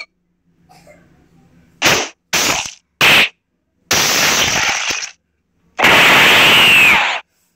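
Stick-figure animation fight sound effects: three short shot-like hits in quick succession, a noisy blast about a second long, then a longer loud blast with a falling whine as an energy beam fires.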